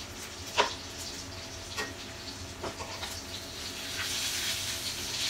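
Chicken pieces sizzling in a frying pan as they are flipped, with a few sharp clinks and scrapes of a metal fork against the pan; the first clink is the loudest. The sizzle grows louder about four seconds in.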